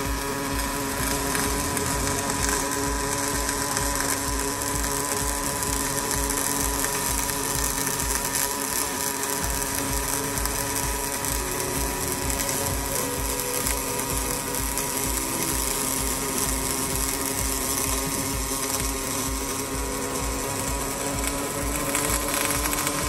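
Robotic MIG/MAG wire-feed arc welding: the welding arc of a Panasonic welding robot crackling and buzzing steadily as the torch runs along the seam, with a low pulsing about four times a second.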